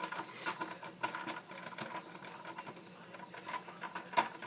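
Light, irregular clicking and tapping of a screw being worked into a hole in a plastic helmet ear, with one sharper click near the end.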